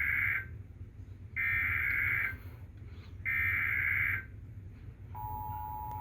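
Emergency Alert System SAME header: three shrill digital data bursts, each about a second long with a second's gap between, over a low hum. About five seconds in, the steady two-tone EAS attention signal starts and holds.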